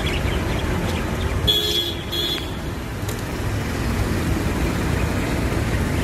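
Road traffic noise, a steady low rumble, with a vehicle horn sounding two short blasts about a second and a half in.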